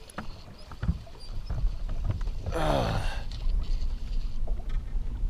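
Wind buffeting the microphone and water slapping against a small boat's hull, with a couple of small knocks near the start. About two and a half seconds in comes a short wordless vocal sound that falls in pitch.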